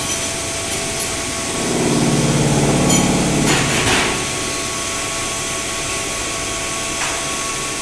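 Steady machine-shop noise with a faint hum from running machinery. A louder buzz rises over it for about two seconds in the middle and ends with a brief hiss. There is a single click near the end.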